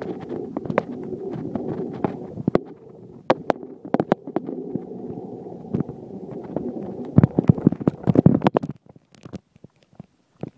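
Phone microphone handling noise while the phone is carried on the run: continuous muffled rubbing with many sharp knocks and clicks. The knocks are heaviest about seven to eight and a half seconds in, then the rubbing stops and only scattered clicks remain.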